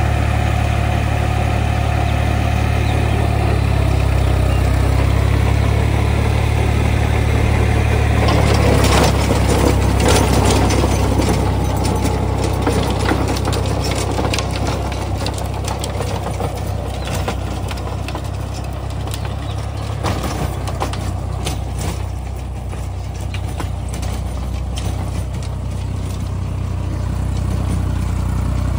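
Deutz-Fahr 55 hp tractor's diesel engine running steadily while it drives a rotavator through the soil. From about nine seconds in, a close, irregular clatter of clicks and knocks from the tiller churning the earth joins the engine.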